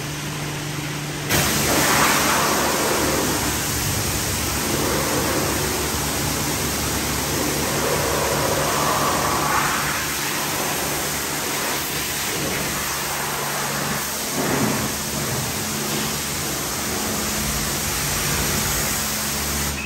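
A car wash's high-pressure spray wand blasting water onto a car, a steady hiss of spray over a steady low hum. It starts suddenly about a second in, swells now and then as the jet hits different surfaces, and stops near the end.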